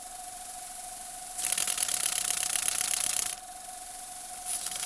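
Model two-cylinder single-acting steam engine running on compressed air, its hand-worked valve changing the flow: a fast, hissing exhaust patter that grows much louder about a second and a half in, falls back about two seconds later, and picks up again near the end. A steady hum sounds underneath throughout.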